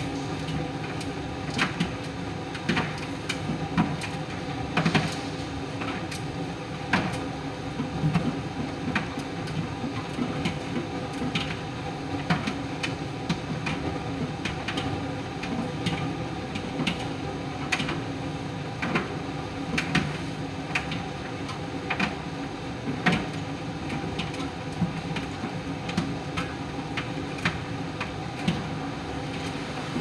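Miele PT 5136 tumble dryer running a normal drying cycle: a steady motor and fan hum as the drum turns, with irregular clicks and knocks from the load tumbling inside the drum.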